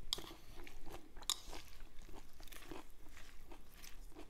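A person chewing a mouthful of crunchy raw leafy salad close up, with irregular wet crunches throughout.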